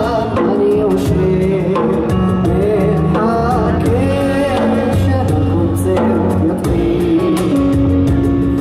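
Live band music: a man sings a wavering melodic line over stage-piano chords, bass and percussion.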